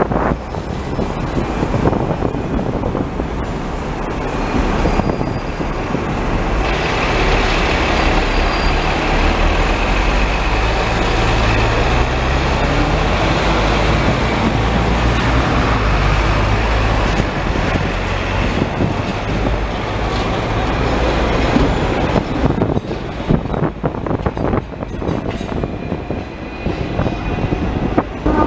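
Hong Kong double-decker electric tram running along its street rails, heard from on board: a steady rumble of wheels and running gear, with a low hum that rises in pitch around the middle. Rattles and clicks come more often near the end.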